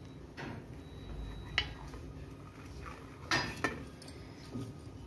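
Knife blade scraping and clicking against a steel pan while cutting through an omelette, in a few short strokes, the loudest about three and a half seconds in.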